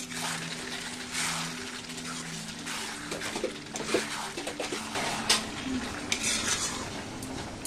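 Metal perforated spatula stirring and scraping chicken with spice masala in a cast-iron kadai as it fries, with irregular clinks against the pan. A steady low hum runs underneath during the first few seconds.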